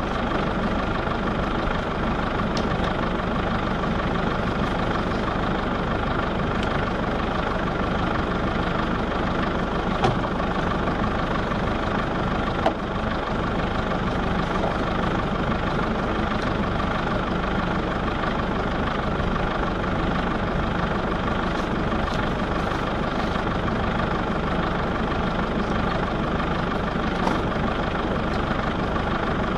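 A vehicle engine idling steadily with no change in speed, with a couple of brief knocks about a third of the way in.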